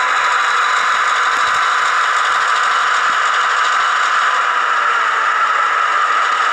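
HO-scale Athearn Genesis GP38-2 model locomotive running on the layout, its Soundtraxx Tsunami2 sound decoder playing a steady diesel engine sound through the small onboard speaker, with a rattle from the running model.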